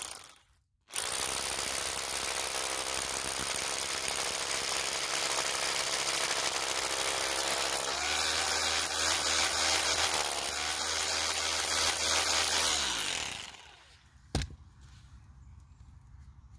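DeWalt SDS rotary hammer drill hammering a hole into a rendered masonry wall for a drop-in anchor. A short burst right at the start, then a steady run of about twelve seconds, with a shift in its note about eight seconds in. It winds down and stops about thirteen and a half seconds in, followed by a single click.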